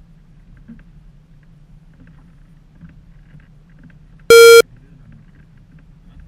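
A single short, very loud beep with a hard start and stop, lasting about a third of a second, over the low steady hum of a boat's engine.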